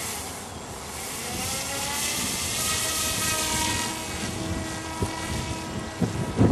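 Motor and propeller of a foam delta-wing RC plane running up to a whine at launch. Its pitch rises over the first two seconds, it is loudest about three seconds in, and it fades as the plane flies away.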